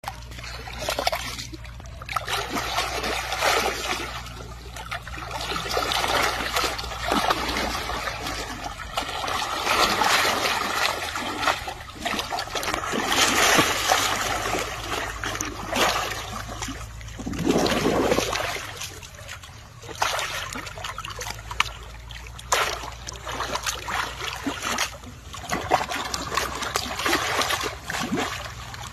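Water splashing and sloshing irregularly as an elephant calf rolls and kicks in a shallow muddy pool, swelling and fading every second or two. A steady low hum sits underneath for the first two-thirds.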